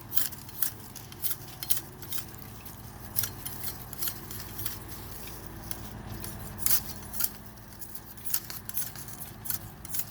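Irregular sharp clicks and crackles, one or two a second, over a steady low hum.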